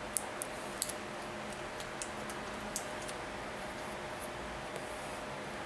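Steady background hiss with a faint low hum, and a few faint, sharp ticks in the first three seconds, like light handling clicks.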